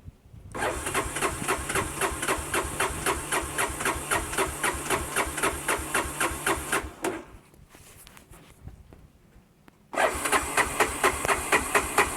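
1985 Honda Big Red 250 three-wheeler's engine being cranked by its starter, a rapid even chugging of about five compression strokes a second, in two attempts: one of about six seconds, then after a pause of about three seconds a second one near the end. The engine doesn't catch: a failed cold start after sitting about a month.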